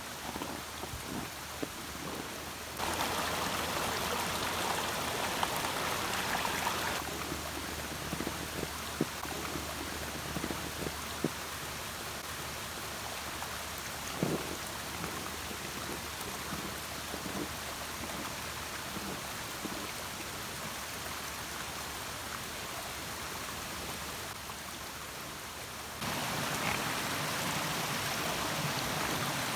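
Rushing water from a small woodland waterfall and its stream: a steady hiss of falling water, louder for a few seconds near the start and again near the end.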